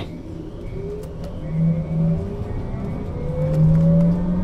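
The electric traction drive of a 2001 Berkhof Premier AT 18 trolleybus whining as the bus accelerates, the whine rising steadily in pitch over a low hum.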